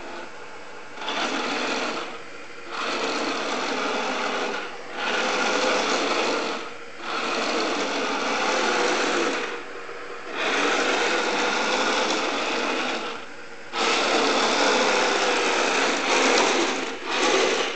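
Remote-controlled Tiger I model tank's electric drive motors and gearboxes whirring in about seven bursts of one to three seconds as it is driven, with short pauses between them in which only a faint hum remains.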